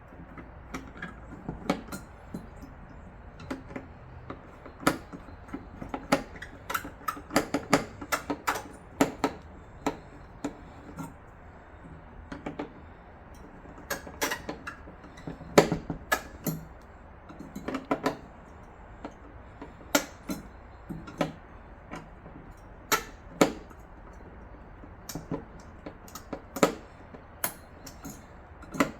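Irregular clicks, taps and knocks of computer hardware being handled and fitted together, a few at a time with short pauses between, over a steady low hiss.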